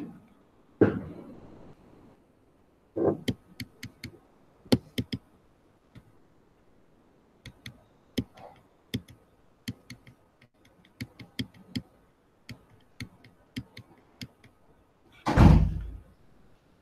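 Computer mouse scroll-wheel and button clicks, sharp and scattered, up to a few a second at times, mixed with several louder knocks. The loudest sound is a dull thump about fifteen seconds in.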